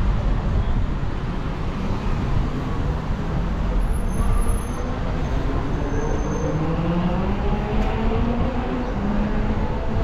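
Street traffic: the steady rumble of cars on a busy road, with one vehicle's engine revving up and rising in pitch over the last few seconds.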